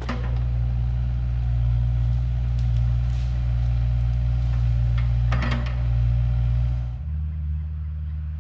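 Excavator's diesel engine running steadily with a deep, even drone. About seven seconds in it abruptly changes note and drops a little in level.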